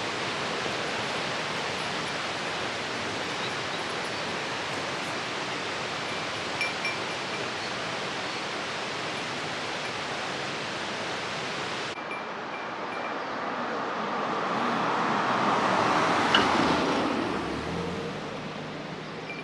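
Steady rushing of a mountain stream's rapids. About twelve seconds in, the sound cuts to a different take, where the rush swells louder and then fades.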